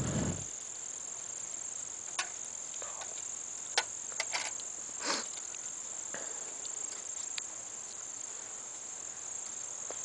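Steady high-pitched chirring of an insect chorus, with a few short clicks and taps scattered through it, the loudest about five seconds in.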